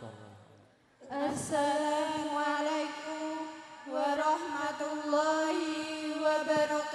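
Two women singing a cappella into microphones in long held notes, starting after a near-silent pause of about a second.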